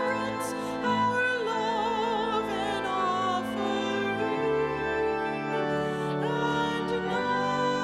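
Church music with a classically trained singing voice, its wide vibrato clearly audible, over sustained instrumental chords whose bass shifts partway through.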